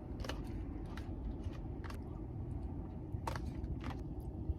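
Close-up eating sounds: chewing, with a few short clicks spaced through it, over a low steady rumble.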